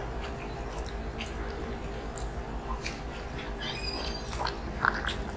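Close-up eating sounds of people chewing lechon kawali in coconut milk with rice: scattered wet mouth clicks and smacks over a steady low hum, with one sharper smack near the end.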